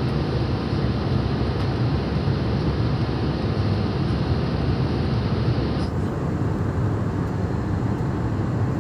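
Steady rumble and rushing noise of a jet airliner heard from inside the cabin. The hiss thins out suddenly about six seconds in.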